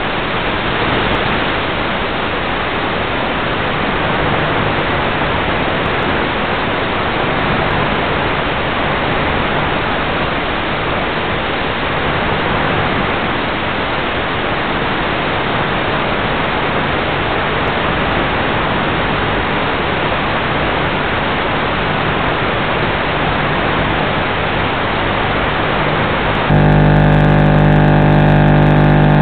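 Steady rushing hiss on the onboard audio of a Bixler 3 FPV model plane in flight, with a faint low hum coming and going. About 26 seconds in, at a cut, it steps up to a louder steady buzz with several tones, the plane's electric motor running.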